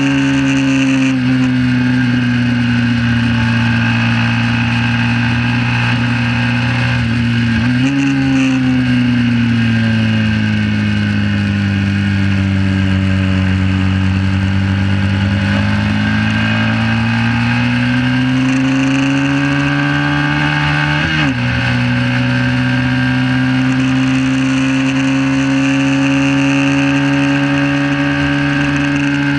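1968 Honda CB350 parallel-twin engine running hard under race load. The pitch jumps up with a downshift about a quarter of the way in, sags slowly through a long corner, then climbs as the bike accelerates out. It breaks briefly with an upshift about two-thirds of the way through, then holds a steady high drone.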